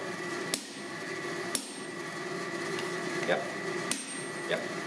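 A sledgehammer striking a hand-held top tool on a hot, layered steel billet lying on an anvil, with a few sharp metallic blows and a short ring after each. The blows are about a second apart, with a longer pause before the last one. This is setting the forge weld: squeezing the gaps out of a Damascus stack of EN42J and 15N20 steel.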